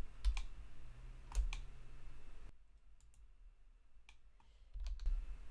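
A few scattered single clicks of a computer mouse and keyboard, with a faint low background hum.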